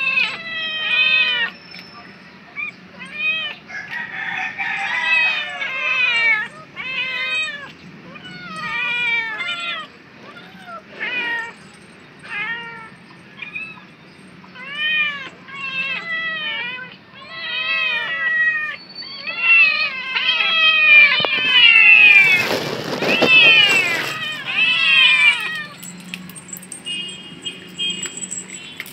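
Several kittens meowing over and over, short high-pitched meows overlapping one another, as they beg for food. The meowing grows louder about two-thirds of the way through, with a brief burst of rustling noise under it.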